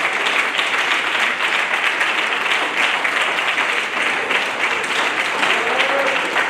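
A congregation applauding: steady, dense clapping from many hands, with faint voices calling out near the end.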